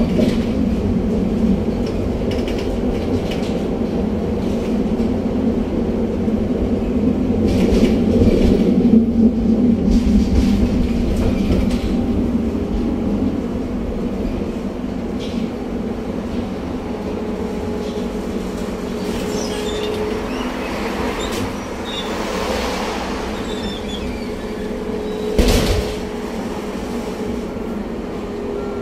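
Running sound inside a moving tram: a steady motor hum with wheel rumble on the rails. It is loudest around eight seconds in, then eases off, and there is a single sharp knock near the end.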